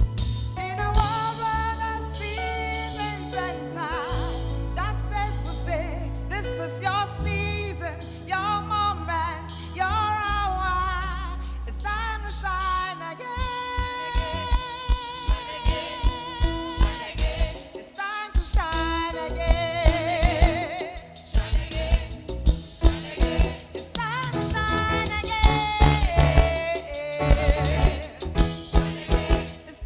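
Gospel music with singing: wavering vocal lines over long held bass notes, and drums coming in with a steady beat from about halfway through.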